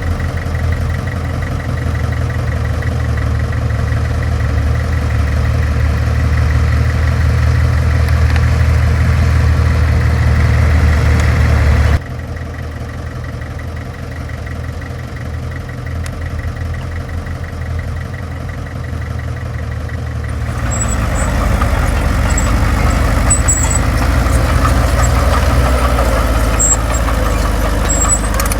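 Diesel engine of heavy earthmoving machinery running steadily. It drops abruptly in level about twelve seconds in, then grows louder and rougher from about twenty seconds in, with faint high metallic clicks.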